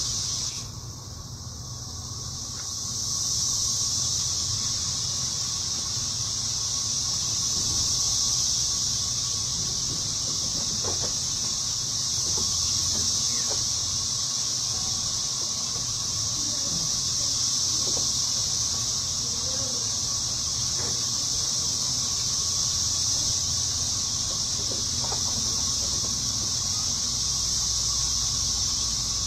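A steady, high-pitched insect drone that drops out briefly about a second in and then runs on unchanged.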